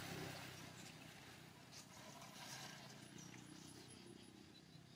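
Faint outdoor ambience with a quick run of about six short, high chirps a little after three seconds in.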